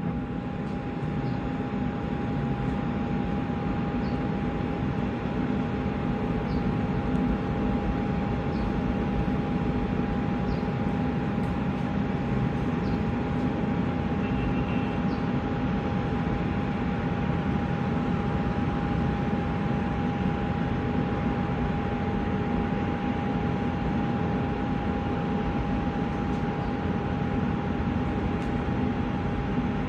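Jet airliner engines running at a steady level: a constant whine over a low rumble.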